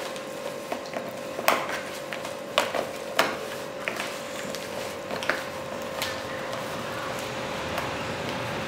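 Hands kneading and turning raw chicken pieces in spice marinade inside a plastic tub, with irregular knocks and clicks of the pieces and fingers against the plastic, the sharpest about a second and a half in and again around three seconds in. A steady hum runs underneath.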